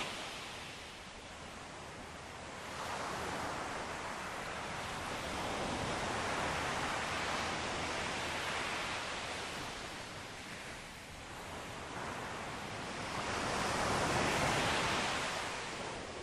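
Ocean waves washing onto a shore, the rush of surf swelling and ebbing in slow surges, loudest about six and again about fourteen seconds in.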